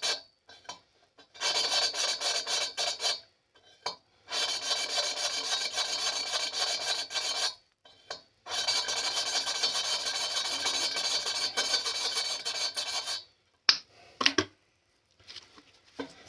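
Exhaust valve being lapped into its seat in a Triumph Bonneville cylinder head: a gritty rasp of grinding paste as the valve is spun back and forth by hand, in three long spells with short pauses between them. A few sharp clicks follow near the end.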